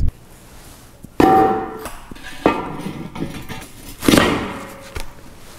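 A 30 kg ductile-steel swage block being set and shifted on a square-tube steel stand: four metal clanks, the loudest about one second in and about four seconds in, each leaving a short ringing tone.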